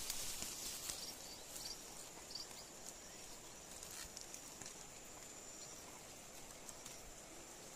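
Faint forest ambience: a steady high-pitched insect drone, with soft scattered clicks and rustles of a hand picking small wild mushrooms off a wet log among leaves.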